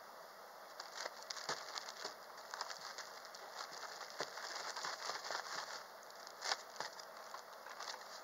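Thin plastic bag crinkling and rustling as okra pieces are dropped into it to be coated in flour, with a scatter of small irregular ticks and rustles.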